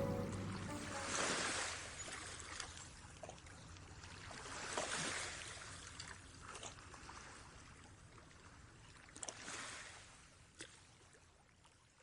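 Water sloshing and lapping in three slow swells a few seconds apart, with small drips and clicks between them, growing fainter toward the end.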